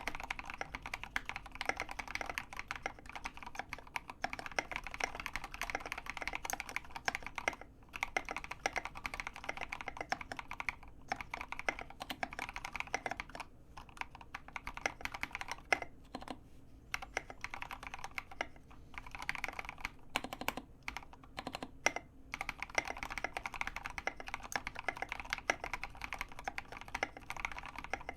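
Continuous fast typing on a custom mechanical keyboard with lubed linear Gateron Yellow switches on 70 g springs, an acrylic plate and SA profile keycaps: a dense run of keystroke clacks, broken by a few brief pauses.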